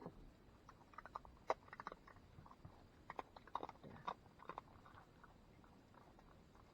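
Opossum chewing cat food: irregular crunches and clicks for about four seconds, thinning out near the end.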